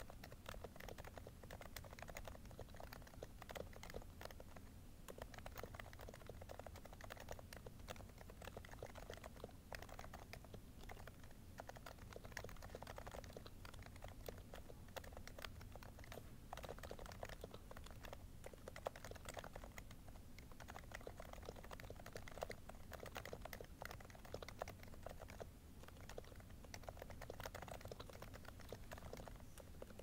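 Silenced Leopold FC660C Topre keyboard typed on continuously: quiet, dampened keystrokes from its rubber-dome switches with 45 g domes, purple sliders and lubed stabilizers, with faint room hiss underneath.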